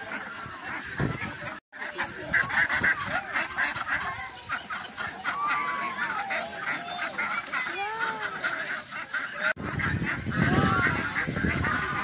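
A crowd of domestic ducks and geese calling over one another, a busy mix of quacks and honks with many short arching cries, broken twice by brief gaps.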